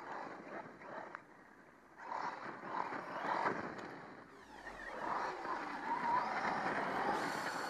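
Brushless electric motor of a 1/8-scale RC monster truck whining as it is driven, the pitch wavering up and down with the throttle, over a rushing noise of tyres on gravel.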